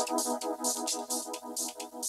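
Electronic background music with a fast, steady beat: pulsing synthesizer chords over a hi-hat-like rhythm.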